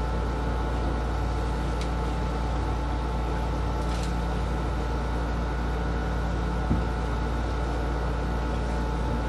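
Steady mechanical hum and hiss of a running room appliance, with a deep low rumble, a couple of faint clicks and a small knock.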